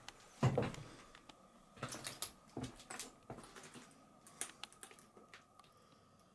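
Footsteps and shuffling over a debris-strewn floor: irregular crunches, clicks and knocks of rubble and broken material underfoot, the loudest about half a second in, over a faint steady hum.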